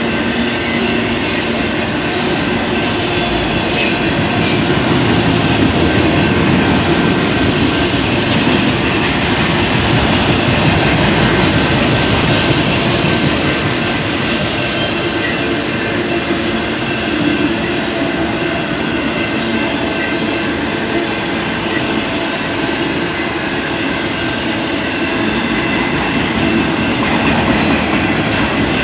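Long freight train rolling past, a steady loud rumble of its cars on the rails.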